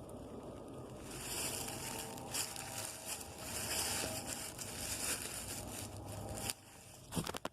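Footsteps crunching and crackling through dry leaves over rocky ground during a climb, mixed with rustling handling noise on the phone. The crackle drops off abruptly near the end, and a few sharp knocks follow.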